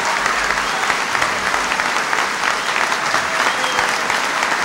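A large crowd applauding, steady dense clapping that keeps on without a break.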